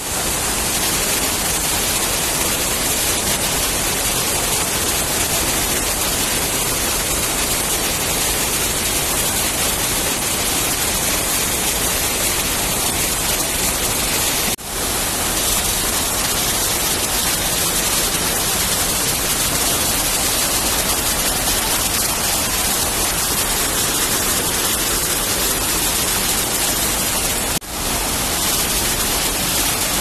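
Water pouring over a low waterfall ledge and crashing into churning white water below, a loud steady rush close to the microphone. The sound briefly drops out twice, about halfway through and near the end.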